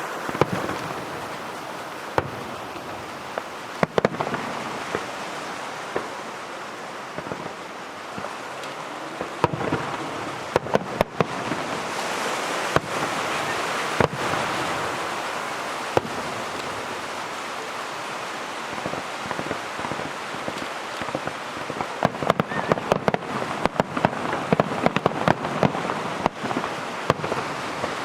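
Aerial fireworks bursting: scattered sharp bangs, then a dense run of rapid crackling cracks in the last several seconds, over a steady rushing background.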